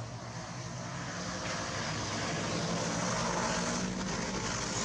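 Engine noise of a passing motor vehicle, a steady hum under a broad rushing noise that swells to its loudest about three seconds in and then eases off.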